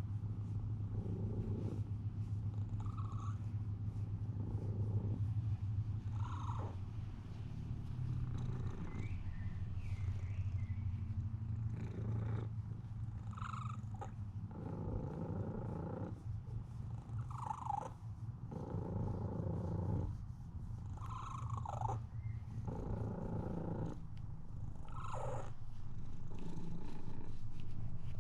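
Domestic cat purring close to the microphone: a steady low rumble that swells and eases every few seconds with its breathing.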